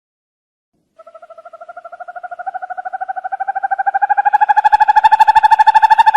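An owl's rapid trill: evenly spaced hooting notes, about ten a second, starting about a second in and growing steadily louder while rising slightly in pitch.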